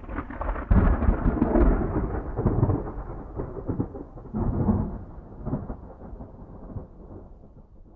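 A long roll of thunder: a loud clap about a second in, another swell around four and a half seconds, then rumbling that fades away.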